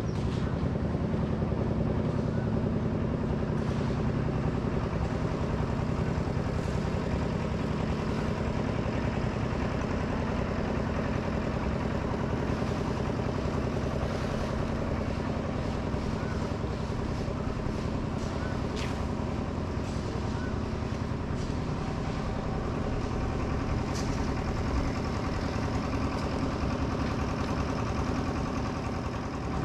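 Steady mechanical drone, like an engine running, holding an even level throughout, with a few faint short high sounds over it.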